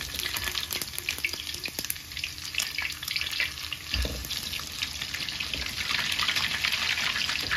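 Thai omelette with glass noodles and minced pork sizzling and crackling in deep hot oil in a wok. About four seconds in, a metal spatula turns the omelette over with a soft thump, and the frying grows louder afterwards.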